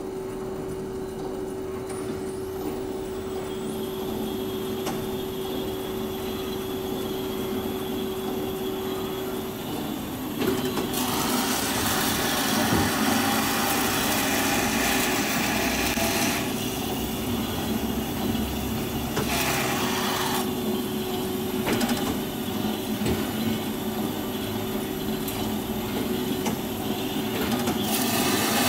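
Cosen C-260NC horizontal band saw running, with a steady hum and tone and a high whine that rises about two to four seconds in. About ten seconds in, the blade starts cutting the clamped workpiece, and a louder sawing noise joins that shifts in strength as the cut goes on.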